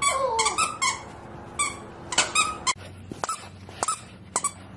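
A squeaker inside a plush hedgehog dog toy squeaking again and again at irregular intervals as a small dog chews and shakes it.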